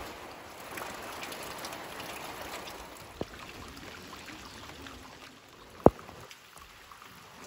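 Steady rain falling, with rainwater splashing from a downspout into a metal barrel. Two sharp taps stand out, a small one about three seconds in and a louder one just before six seconds.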